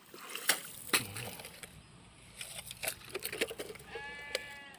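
A short, flat bleat from a farm animal near the end. Earlier there are two sharp knocks, about half a second and one second in, and a few lighter clicks.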